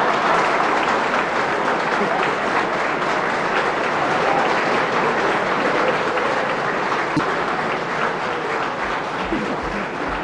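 A large hall audience applauding, steady clapping that tapers off near the end.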